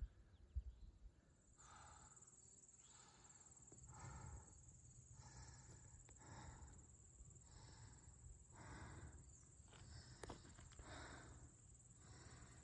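Faint, regular soft swishes about once a second from a hiker walking on a grassy trail, over a steady high insect trill that starts about a second and a half in.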